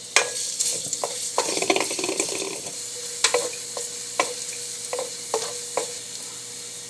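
Minced garlic sizzling in hot oil in a metal wok, with a wooden spatula stirring and tapping against the pan every half second or so. The stirring turns into a brief stretch of scraping in the second and third seconds.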